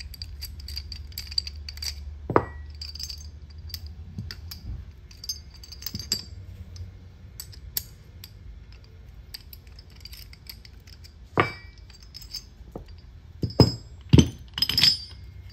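Steel tool parts and a wrench clinking and knocking as Baker's countershaft splitter tool is bolted together on the bench: scattered light ticks with a few sharp metal knocks, two of which ring briefly.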